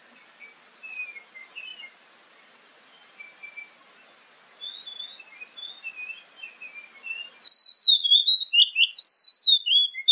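Oriental magpie-robin singing: soft, varied whistles and chirps, then about seven and a half seconds in, a sudden switch to a much louder run of quick, clear whistled phrases.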